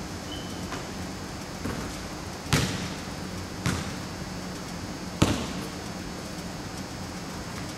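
Basketballs striking the rim, hands and hardwood court floor in a gym hall: three sharp thuds about a second or so apart, the last the loudest, each with a short echo. A steady low hum runs underneath.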